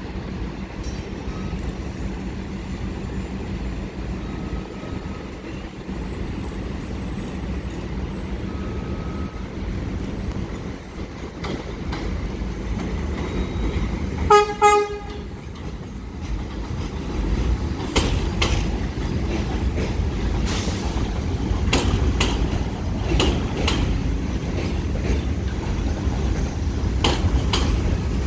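R68 subway train approaching and running past on an elevated track, a steady rumble that grows louder. About halfway through its horn gives two quick toots, then the wheels clatter in rapid clicks over the rail joints as the cars go by.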